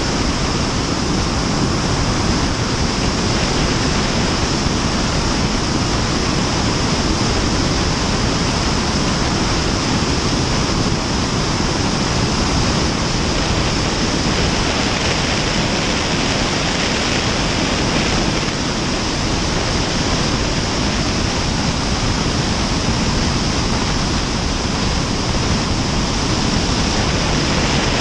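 Steady rush of wind noise from the airflow over a camera mounted outside under the wing of a Cessna 172 Skyhawk in flight, an even, unbroken hiss that covers everything else.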